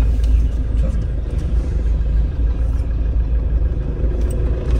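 Mahindra Scorpio heard from inside the cabin as it moves off: a steady low engine and road rumble.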